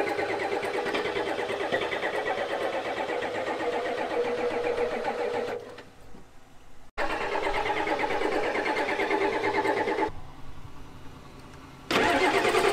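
Ford 7.3 IDI V8 diesel being cranked over by its starter in two long bursts with a pause between, turning over without firing. The injection pump is not delivering fuel to the injectors, which the crew blames on a failed fuel shutoff solenoid.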